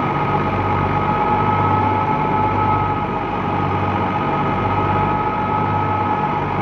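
New Holland 480 tractor's diesel engine running steadily under load, driving a wheat thresher: a low engine hum under a steady high whine from the spinning thresher.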